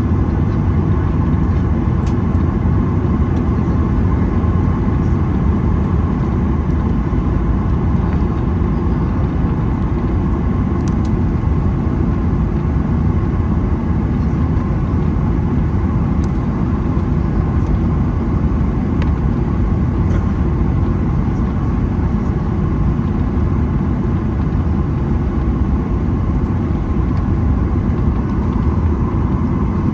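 Cabin noise inside a Boeing 737-900ER: a loud, steady rumble of its CFM56-7B jet engines and rushing air, with faint steady tones above it.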